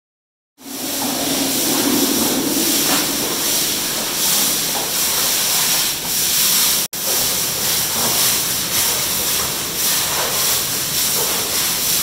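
Many long-handled deck brushes scrubbing a wet tiled bath floor: a steady, dense hiss that cuts out for an instant about seven seconds in.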